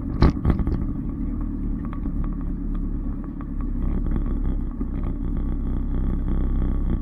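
Off-road 4x4 driving slowly over rough ground: a steady low engine rumble with frequent knocks and rattles. The loudest is a sharp knock just after the start.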